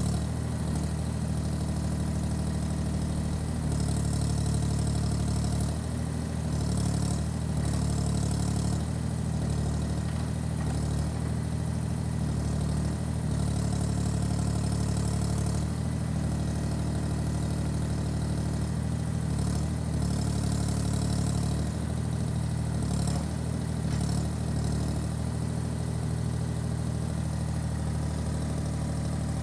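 Comet BL20/K4412 backhoe loader's diesel engine running steadily at low revs. Its pitch and level shift slightly every few seconds.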